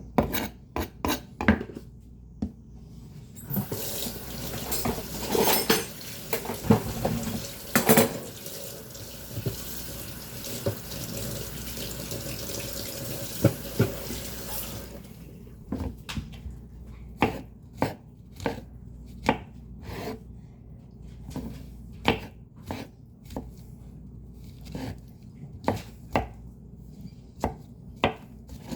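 Greens being chopped in sharp, irregular strokes, about one to two a second. A few seconds in, a tap runs for roughly ten seconds with only a few strokes over it, then the chopping resumes. A fan hums steadily underneath.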